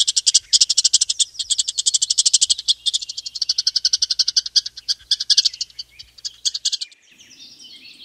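Squirrel giving rapid trains of high-pitched chip calls, many per second, in runs broken by short pauses, stopping a little before the end.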